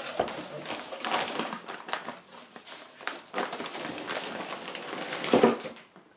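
Cardboard shipping box being opened by hand: its flaps rustling and scraping as they are pulled back, with one louder knock about five seconds in.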